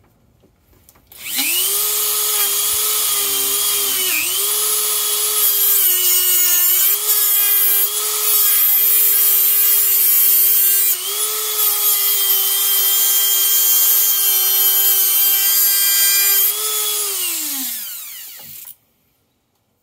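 Dremel rotary tool spinning up and cutting through rubber marine exhaust hose to trim it to fit, a high steady whine with a harsh grinding hiss. The pitch sags briefly under load a few times, and the tool winds down in falling pitch near the end.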